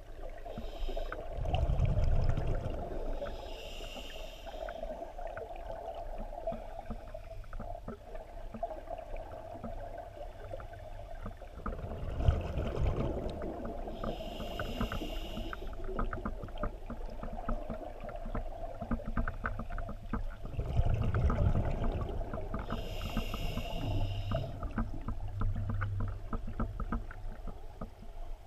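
Scuba diver breathing through a regulator underwater: three breath cycles, each a low bubbling rumble of exhaled air followed about two seconds later by a high hiss of inhalation.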